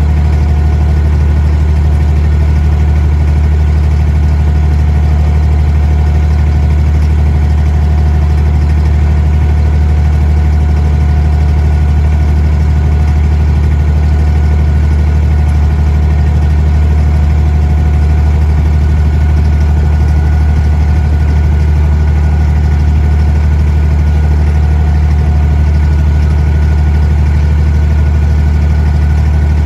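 An abra water taxi's inboard diesel engine running steadily under way: a loud, even, low drone with no change in speed.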